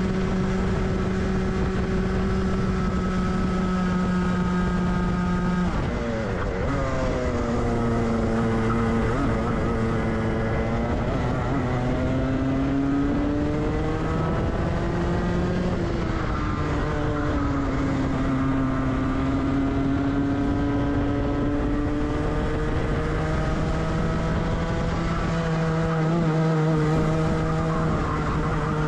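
Rotax two-stroke kart engine heard onboard, running at steady high revs, then dropping sharply about six seconds in as the driver lifts off for a corner. The revs climb again, dip once more about sixteen seconds in, and rise slowly back to high revs near the end.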